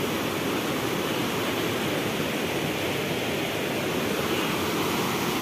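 Fast mountain river rushing over rocks: a steady, even rush of water.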